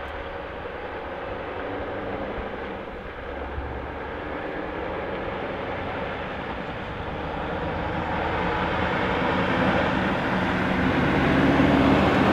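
Scania R580 8x4 bulk truck's V8 diesel engine pulling away and driving up, growing steadily louder and loudest near the end as the truck passes close by.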